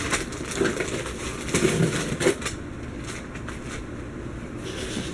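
Wrapping paper and packing material crinkling and being crushed, with many short crackles in the first couple of seconds that then thin out.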